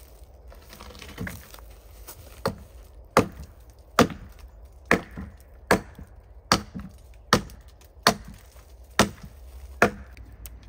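Hatchet chopping a thin branch held on a wooden stump: about ten sharp blows, roughly one every 0.8 seconds, starting about two and a half seconds in.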